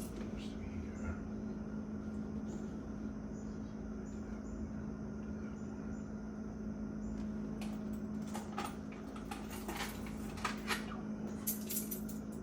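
Steady low electrical hum, with several sharp clicks and taps in the last few seconds.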